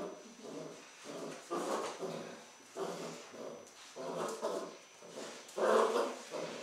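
Malinois puppy barking in short bursts, about one a second, as it bites and tugs at a rag; the loudest bursts come near the end.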